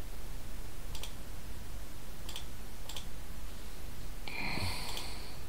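Computer mouse clicking about four times, short sharp single clicks a second or so apart, with a brief hiss near the end.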